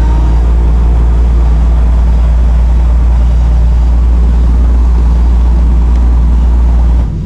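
Moving passenger train's steady running noise, a loud low rumble with a hiss of rushing air, which drops away abruptly near the end.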